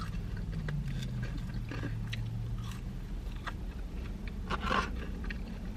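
Chewing a mouthful of French fries, with small wet mouth clicks and a louder smack near the end. A low steady hum sits underneath.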